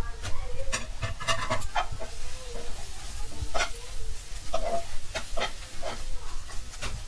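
Steel spoon stirring and scraping scrambled egg bhurji in a frying pan: irregular clicks and scrapes of metal against the pan over a faint sizzle of the cooking eggs.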